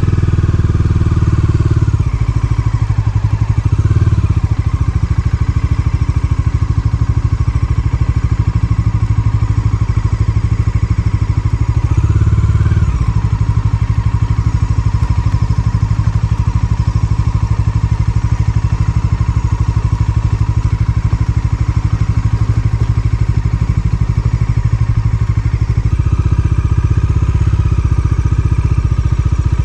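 Motorcycle engine running steadily under way, its revs rising briefly about four seconds and twelve seconds in.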